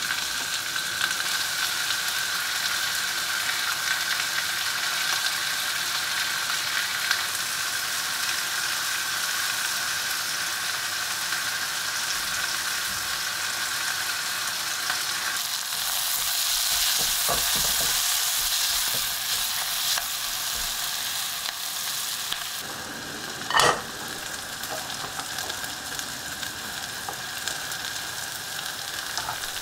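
Food sizzling and frying in a pan while it is stirred, a steady hiss that gets louder for a few seconds in the middle. A brief sharp clink stands out about three-quarters of the way through.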